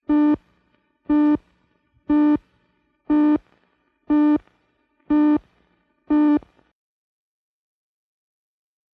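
Countdown leader beeps: seven short, identical electronic tones, one a second, which then stop.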